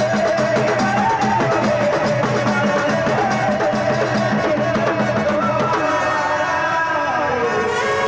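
Loud music with a steady drum beat and a melody line. Near the end the melody gives way to a tone that slides down into steady held tones.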